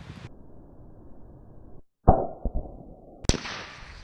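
AR-15 rifle shots: a sudden loud report about halfway through that dies away, a smaller crack, then another sharp shot about a second later.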